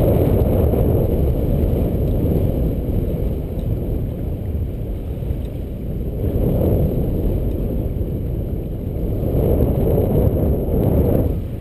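Steady low rumble of wind buffeting the microphone and water sloshing near it, swelling briefly twice in the second half.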